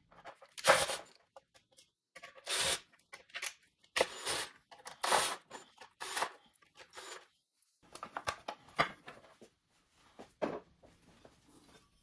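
A Ryobi cordless drill-driver run in about half a dozen short bursts, backing Phillips screws out of a plastic mudguard, with clicks and rattles of the plastic and metal parts being handled between the bursts.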